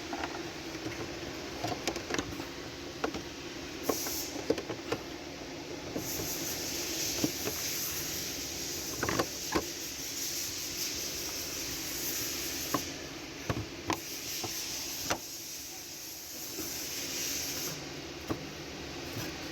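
Scattered metallic clicks and knocks of hand tools at work in the engine bay as the fan clutch is refitted, over a steady background hum and hiss; a high hiss comes in twice and drops out again.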